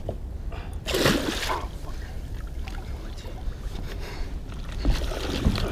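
A hooked halibut thrashing at the water's surface: a loud splash about a second in and a smaller one near the end, over a steady low rumble of wind on the microphone.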